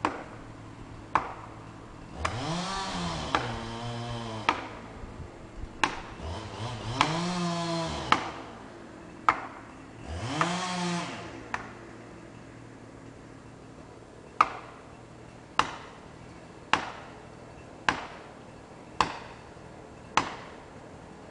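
Chainsaw revved up and back down three times in short bursts, among sharp knocking strikes that come about once every second or so throughout. The strikes carry on steadily after the saw goes quiet.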